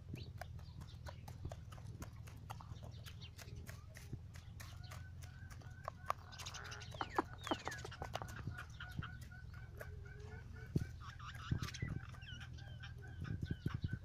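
White aseel rooster pecking at the ground with many quick, short taps, while from about five seconds in a chicken clucks in a steady run of short, soft notes.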